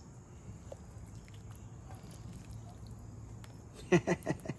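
Low steady hum, then near the end a quick run of four or five squeaks and scrapes as a spatula scoops macaroni and cheese out of a stainless steel pan.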